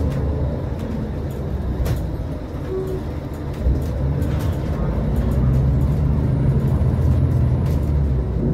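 Scania L94UA articulated diesel bus heard from on board while underway: steady engine drone with light rattles from the body. The engine grows louder from about five seconds in, and there is a single thump about three and a half seconds in.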